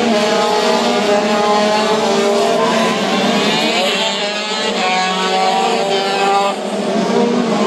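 Several 125cc two-stroke racing kart engines run hard at high revs as a pack of karts passes. Their overlapping pitches rise and fall as they go by.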